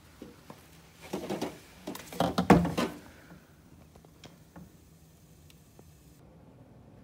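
Plastic bags rustling and packaged food and a drink can being set down on the plastic shelf of a small fridge, with the loudest knock about two and a half seconds in, followed by a few light clicks.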